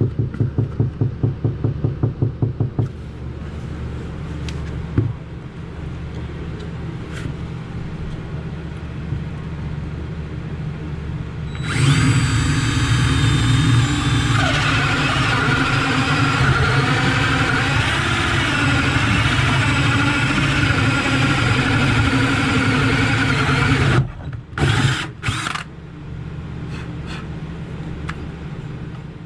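Power tool, likely a drill, running in stages. It starts with a rapid pulsing for about three seconds, then a steadier hum. About twelve seconds in it runs much louder with a wavering pitch, and it stops in a few short bursts near the end.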